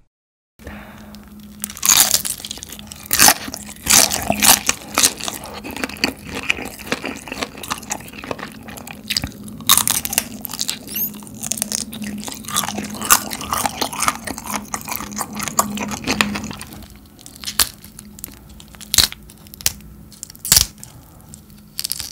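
Close-miked eating sounds: crunchy bites into sauce-glazed fried chicken and wet, sticky chewing, with sharp crackles scattered all through. A faint low hum runs steadily underneath.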